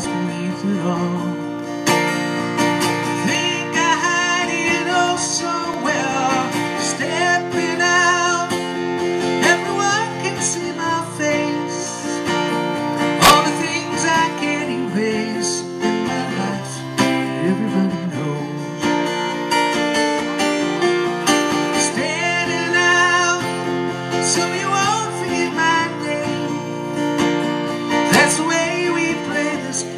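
Strummed acoustic guitar with a man singing a country-style song, played live solo. A single sharp click sounds about halfway through.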